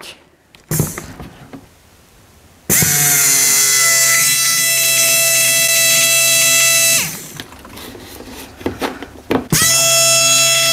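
High-pressure electric fuel pump switched on and running with a steady, loud whine. About four seconds later it winds down in pitch as the power is cut, and it starts again with a rising whine near the end, with a few clicks from handling in between. The owner isn't sure the pump should sound like this, and he later suspects it is dying, since it builds almost no pressure.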